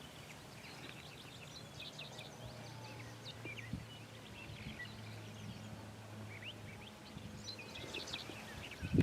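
Several songbirds chirping and calling in short, scattered notes, over a faint, steady low hum.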